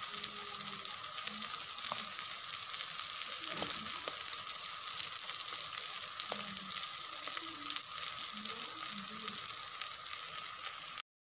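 Sliced onions and boiled eggs sizzling in oil in a pan, a steady frying hiss with a few faint ticks, cutting off suddenly near the end.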